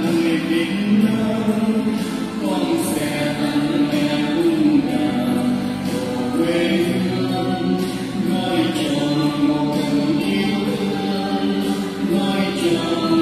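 Music: a Vietnamese hymn sung with accompaniment, the singing carrying steadily throughout.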